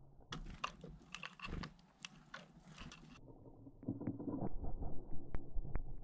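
A great tit rummaging in sunflower seeds on a wooden feeder tray makes a dense run of crisp clicks and crunches. After a short lull, a duller rustle follows with a few sharp ticks.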